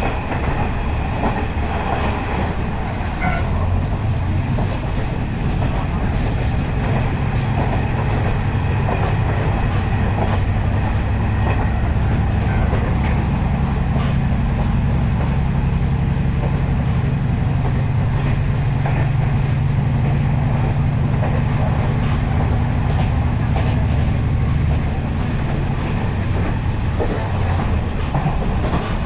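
KiHa 40 series diesel railcar running at speed, heard from inside the car: a steady low drone from the underfloor diesel engine and running gear, with wheels clattering over the rails. The drone is stronger for most of the stretch and eases off near the end.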